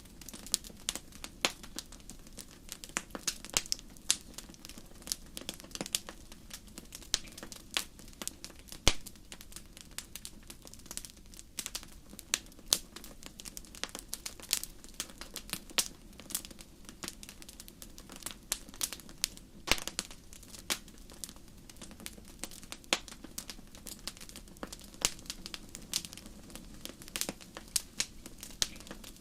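Wood fire crackling in a fireplace: a dense, irregular run of sharp pops and snaps over a low steady background, with one loudest snap about nine seconds in.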